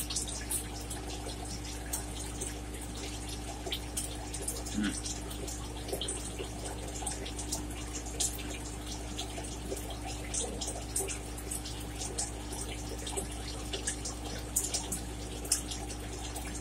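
Small, thin-shelled crabs being picked apart and eaten: many irregular wet clicks and light shell cracks with chewing, over a steady low hum.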